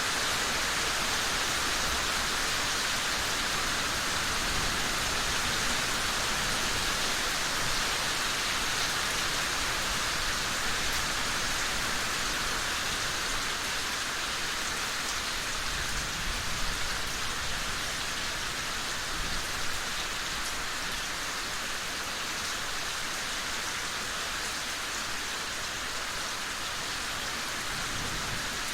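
Steady rain falling, an even continuous hiss of many drops.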